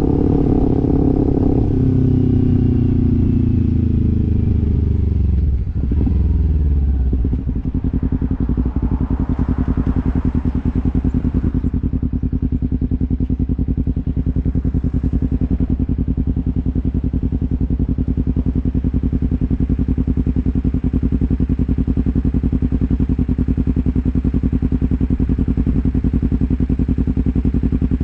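Kawasaki Ninja 300's parallel-twin engine, its revs falling as the bike slows over the first six seconds, then settling into a steady idle for the rest of the time.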